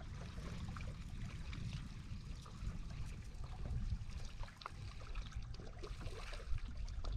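Small waves lapping and trickling against a kayak hull, over a steady low rumble, with a few faint scattered ticks.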